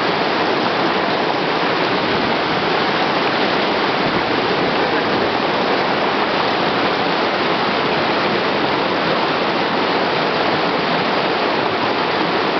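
River water rushing through rapids: a loud, even noise that does not change.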